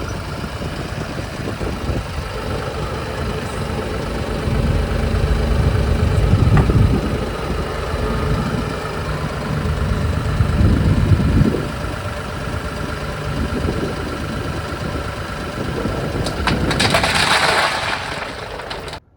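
An engine running steadily, rising and falling in level a few times, with a loud hissing rush joining it near the end before the sound cuts off suddenly.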